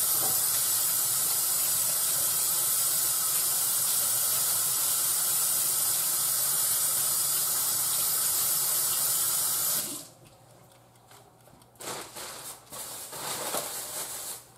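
Kitchen faucet running steadily into a sink as hands are washed under it, turned off suddenly about ten seconds in; a few faint knocks follow.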